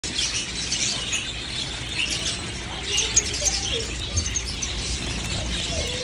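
Many small cage birds chirping at once, a dense, overlapping chatter of short high chirps.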